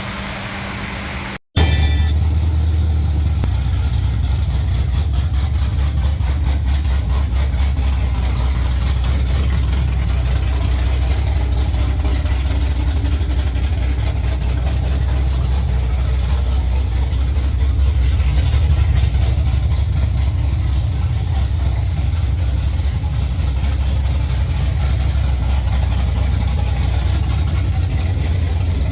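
A pickup truck's engine idling steadily with a loud, low exhaust note. It comes in after a brief cut about a second and a half in.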